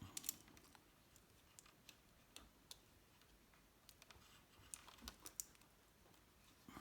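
Near silence with a few faint, scattered clicks and ticks from the gear-shift cable being worked into its plastic cable lock.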